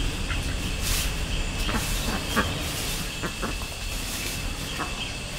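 Footsteps crunching through dry leaf litter in short, scattered crackles, over a steady low rumble of wind on the microphone.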